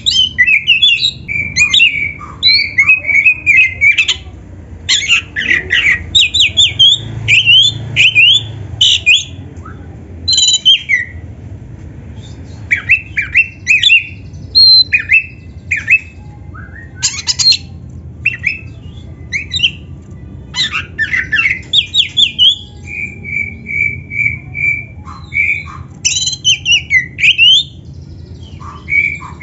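Oriental magpie-robin (kacer) singing loudly and continuously: rapid, varied phrases of quick sweeping whistles, chirps and harsh squawky notes. About three-quarters of the way through comes a run of about five even, repeated notes.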